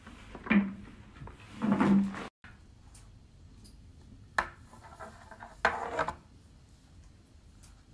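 Handling sounds as hands work a börek on a large round baking tray (sini): rubbing and knocks of hands, dough and filling against the tray. Two louder rubbing sounds come in the first two seconds, then a brief dead gap, then a sharp knock and another rubbing sound about a second and a half later.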